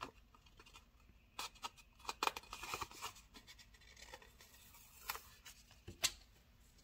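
A paper sticker sheet being handled as a sticker is peeled off: faint rustling and crinkling with scattered light clicks and taps, busiest a second or two in, then a couple of sharper ticks near the end.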